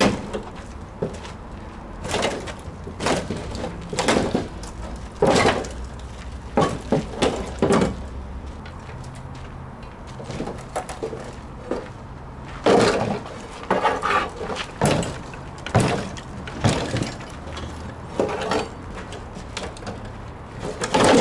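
Steel pry bar levering and knocking at the rusted sheet-metal rear body of a scrapped VAZ-2101, giving irregular metal clanks and knocks, roughly one a second, in two runs with a lull near the middle.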